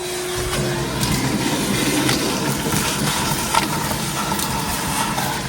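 A small electric motor tool running steadily with a rushing noise and a low hum, starting about half a second in.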